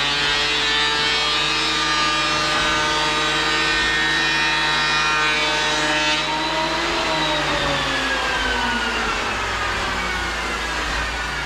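A motor running with a steady, pitched hum. About halfway through, its pitch starts to fall slowly and keeps falling.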